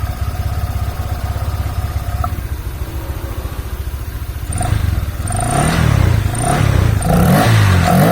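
Honda Vario scooter's single-cylinder engine idling steadily, then revved several times from about four and a half seconds in, each rev rising and falling in pitch. Under throttle it no longer makes its growl ("ngorok"), the crankshaft having been tapped back true; the CVT pulleys are off.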